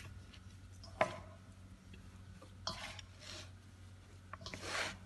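Hands kneading and squeezing soft bread dough in a stainless steel bowl: a few short rustling squishes, with a sharp tap about a second in.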